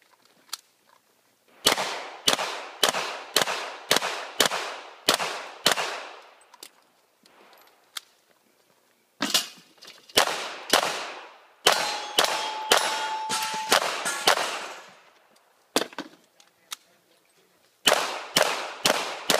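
Handgun fired in rapid strings of shots, roughly two a second, with short pauses between strings as the shooter moves. In the middle there is a sustained metallic ring, typical of a steel target being hit.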